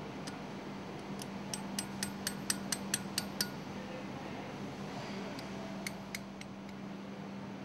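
Light hammer taps on steel: about ten quick metallic clinks at roughly four a second, then two more a little later, as the piston's locking flange in a MAN B&W exhaust-valve oil cylinder is tapped loose.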